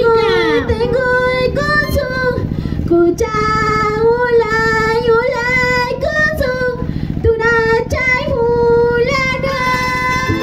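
Women singing a qhaswa chequeña in high-pitched voices, in short phrases that rise and fall.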